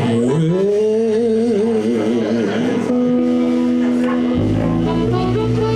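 Live blues band playing: a wavering held note over sustained chords, with the bass and drums thickening the low end about four seconds in.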